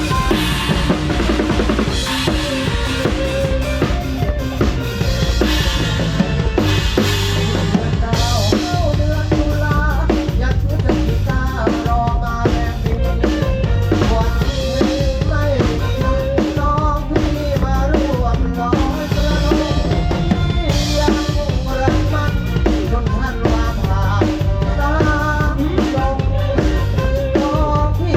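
A live band plays a Thai song in a three-cha (cha-cha) rhythm. The drum kit is loudest, with a steady bass drum and snare beat, and bass and melody instruments play with it.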